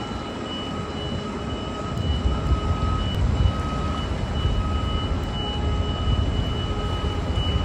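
Dense low rumbling noise that grows louder about two seconds in, with a thin steady high-pitched tone held over it and a fainter second tone coming and going.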